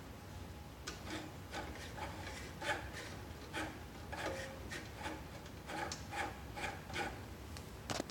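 HP 7015B X-Y recorder's servo motors driving the pen carriage back and forth on its cable-and-pulley drive: a series of short, faint strokes, about two a second.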